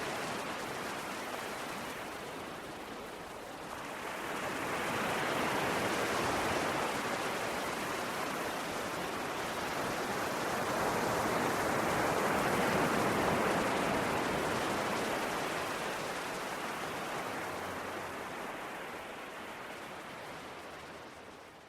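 Ocean waves washing ashore: two slow swells of surf, the second the louder, then a gradual fade.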